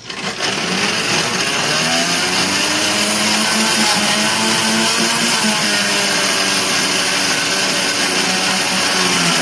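Countertop blender switched on and running at full power, crushing ice cubes with watermelon and water. The motor's pitch wavers up and down as it runs.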